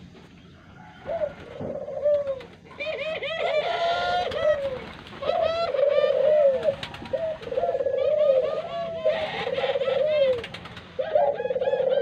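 A flock of ringneck doves (Barbary doves) cooing, several birds calling over one another in repeated arched coos. It starts quieter for about the first second, then becomes nearly continuous.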